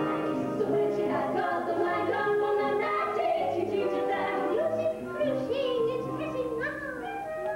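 Stage-musical music from a live theatre performance: the pit band playing over a pulsing bass line, with sung melodic vocal lines on top.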